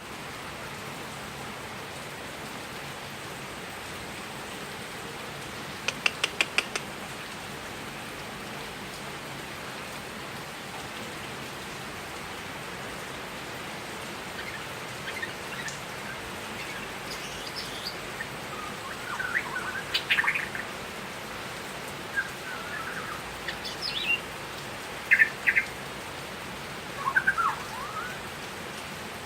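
Bornean white-rumped shama (murai batu) calling and singing in short bursts: a quick run of about six sharp clicking notes about six seconds in, then scattered chirps and brief whistled phrases through the second half. A steady hiss lies underneath.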